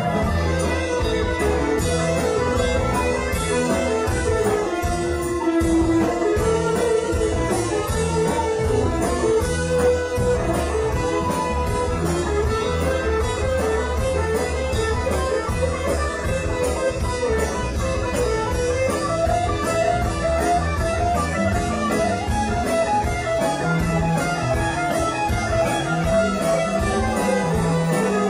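Live rock band playing an instrumental passage, an electric guitar carrying melodic lines over a steady bass and a regular drum rhythm.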